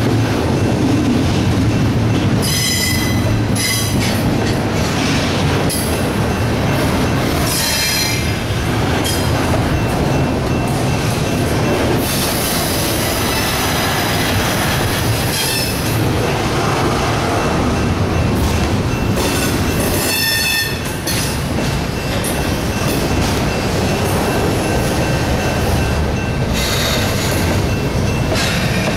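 Double-stack intermodal freight cars of a CSX train rolling past: a steady rumble of steel wheels on rail, with high-pitched wheel squeals coming and going several times.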